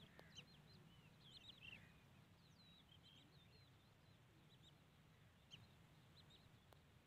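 Near silence, with faint, scattered high-pitched chirps of small birds, most of them in the first two seconds.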